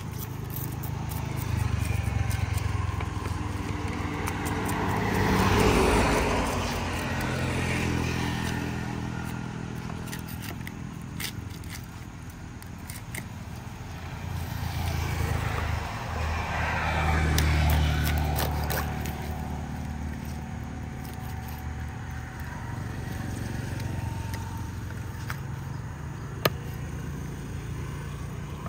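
Road vehicles passing close by, the engine sound swelling and fading twice, about six seconds in and again around seventeen seconds. Underneath are scattered scrapes and light taps of a cleaver scaling and chopping a tilapia on a wooden chopping block.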